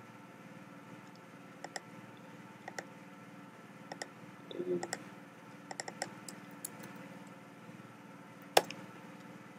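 Scattered keystrokes on a computer keyboard: single clicks and short clusters with pauses between them, the sharpest one about a second before the end.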